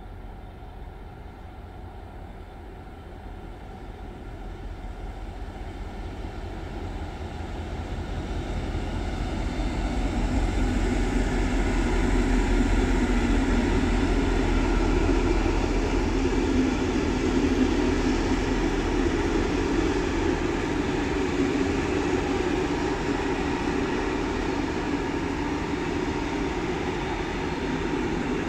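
A train approaching and growing louder over about ten seconds, then running past with a steady rumble of wheels on rail.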